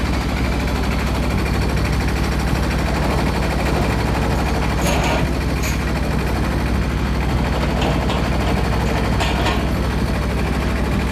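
Engine running steadily at a constant speed, with a few sharp knocks or clanks about five seconds in and again near nine seconds.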